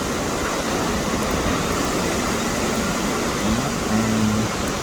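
Hurricane-force wind blowing as a loud, steady rushing noise.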